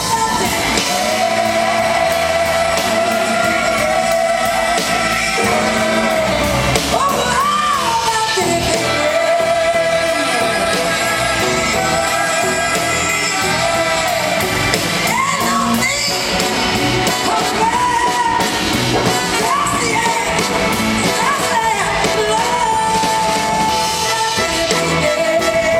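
A live blues-soul band playing loudly, with electric guitars, drums and a horn section of saxophone, trombone and trumpet, and singing over it. It is heard from the audience, with the echo of a large hall.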